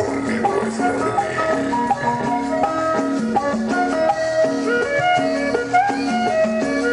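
Cumbia dance music playing loud over a sound system: a steady beat with a shaker keeping time under a melody of short, repeated notes.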